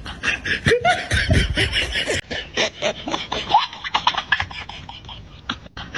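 People laughing in quick, repeated bursts.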